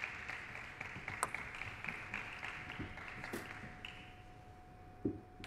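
Scattered applause that fades away after a point is won in a table tennis match. A few single sharp taps sound, the loudest near the end, and a faint steady tone comes in about halfway.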